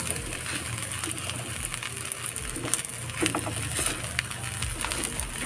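Wooden spatula stirring and scraping fried rice in a metal pan, with irregular scrapes and light taps against the pan.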